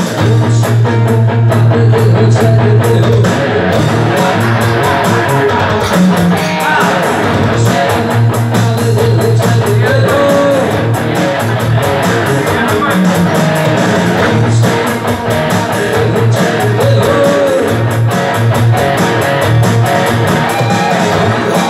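A live band playing: a strummed acoustic guitar and an electric lead guitar over a keyboard pad.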